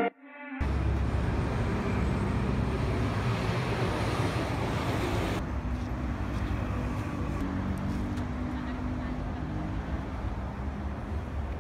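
City street traffic ambience: a steady wash of passing vehicles with a deep rumble underneath. The higher hiss drops away about five seconds in.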